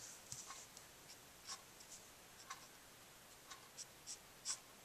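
Faint, short strokes of a Copic marker nib on cardstock, about nine soft scratches at irregular intervals.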